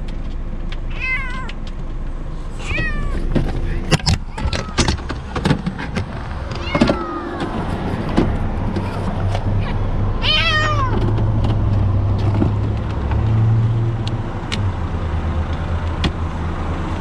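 A frightened stray kitten meowing about four times, each cry falling in pitch, the one about ten seconds in the loudest. Sharp clicks and rattles of a plastic pet carrier and its wire door being handled come a few seconds in, and a low steady hum sets in about halfway through.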